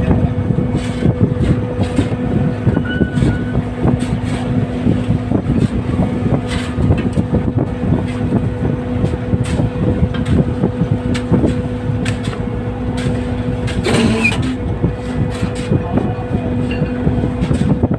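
Fishing boat's engine running with a steady hum, under the irregular knocking and rushing noise of the boat working in rough seas; a brief sharper noise about fourteen seconds in.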